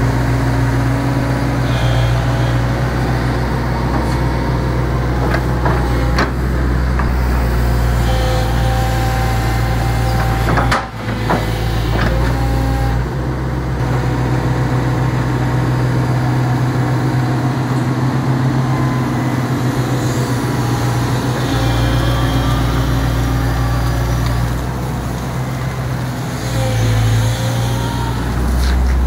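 Diesel engine of a 2006 JCB JS160W wheeled excavator idling steadily, with a brief break in the sound about eleven seconds in.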